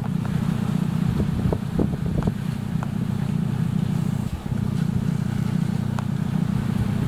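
Sailboat's inboard engine running steadily under way, a low-pitched drone, with a few faint clicks.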